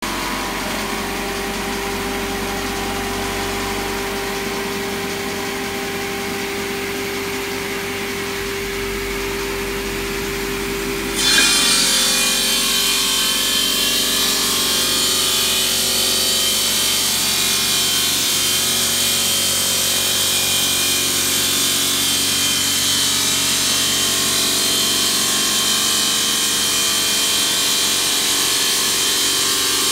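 KAIDA 600 bridge saw running, its blade cutting stone slab with a steady mechanical hum. About eleven seconds in the sound turns abruptly louder and hissier and stays that way, a steady sawing noise.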